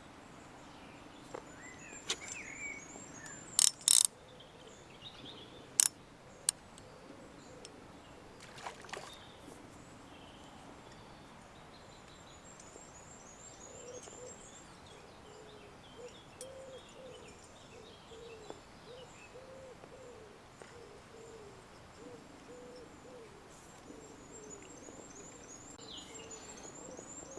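Wild birds calling: a low hooting call repeats in short phrases through the second half, with higher twittering song above it. A few sharp knocks sound in the first seven seconds, the loudest sounds here.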